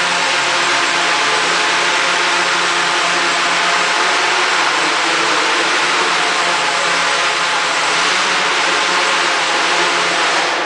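Home-built Arduino quadcopter's four electric motors and propellers running steadily, a loud drone made of several held tones over a rushing hiss.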